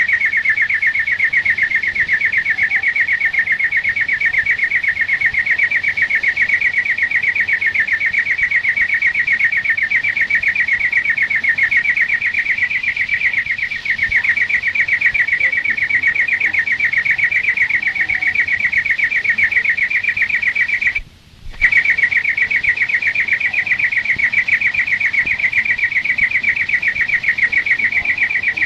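European greenfinch (flurya) singing one long, fast, even trill, held at the same pitch, that breaks off for about half a second near three-quarters of the way through and then resumes.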